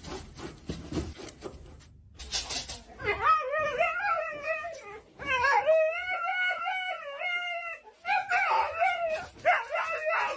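Husky howling and "talking": a series of long, wavering, sing-song calls that start about three seconds in, with short breaks between them. A soft rustle of fabric comes before them.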